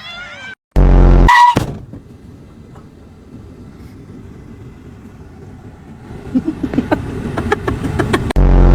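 Car sound effect: a sudden loud, low blast about a second in, then a steady rumble, a quickening run of knocks and clatter from about six seconds, and a second loud blast near the end.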